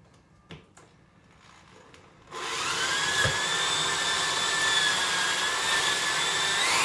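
Electric drill starts up about two seconds in and runs steadily with a high whine, its bit boring into a bamboo cutting board; the pitch rises near the end as the drill speeds up.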